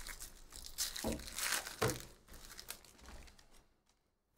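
Foil wrapper of a Topps Chrome baseball card pack being torn open and crinkled, loudest in the first two seconds, then quieter rustling.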